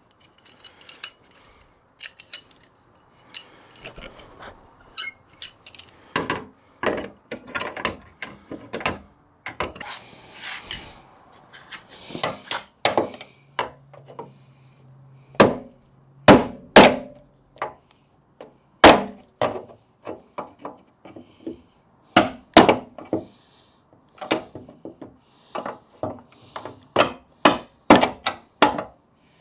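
Small sledgehammer striking a Jeep XJ door hinge in irregular runs of sharp blows, working a stubborn hinge pin and bushing into place. The hardest strikes come in the middle and near the end.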